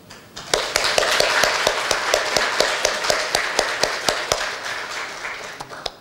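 Audience applauding, with some sharp individual claps standing out. It starts about half a second in, thins out gradually and stops near the end.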